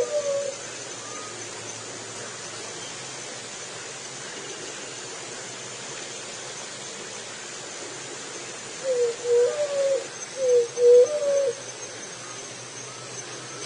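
Juriti, a Leptotila dove, cooing in low hooting notes: one call trails off right at the start, and a longer call of two doubled phrases comes about nine seconds in, over a steady background hiss.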